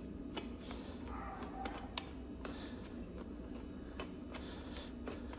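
Scattered light clicks and taps of small metal parts and hand tools being handled, with brief scraping or rustling in between, over a steady low hum.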